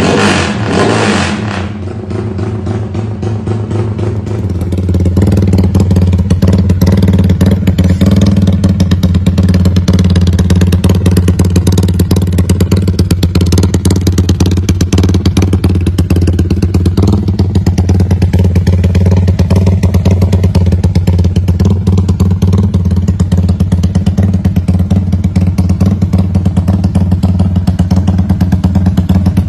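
Yamaha Y15ZR (MX King) 150 cc single-cylinder four-stroke engine with an aftermarket exhaust, set up for a 'rumble idle'. It opens loud, dips about two seconds in, then from about five seconds in holds a steady, loud, rapidly pulsing idle rumble.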